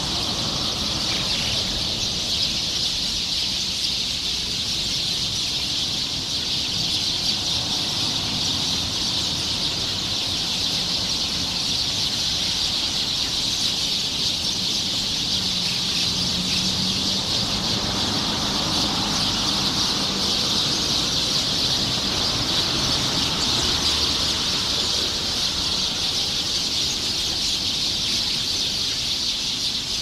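A large flock of small birds chirping all at once in a dense, unbroken chorus as they settle to roost in the evening.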